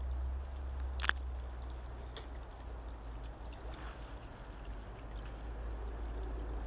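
Small brook running, with a low steady rumble underneath and scattered small clicks; one sharp click about a second in.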